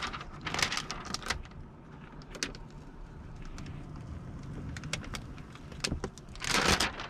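Old window tint film being steamed and peeled off car window glass: scattered crackles and rustles over a steady low hum, with a louder rushing noise near the end.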